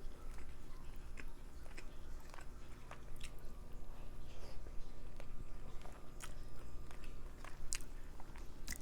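A person chewing food close to the microphone, with scattered small clicks and mouth sounds.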